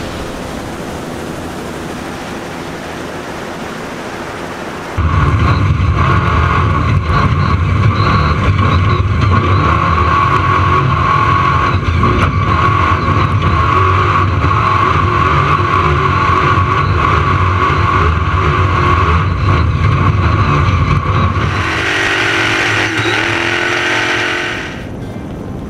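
Desert-racing trophy truck driven hard at speed, heard through its onboard camera: a loud low engine and drivetrain noise with a steady high whine over it, starting suddenly about five seconds in. It changes and eases off near the end. Before it comes a quieter steady noise.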